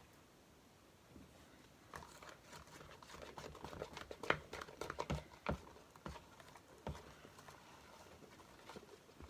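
Slime with added shaving cream being mixed and squeezed: a soft run of irregular sticky clicks and squelches that thins out to a few scattered pops near the end.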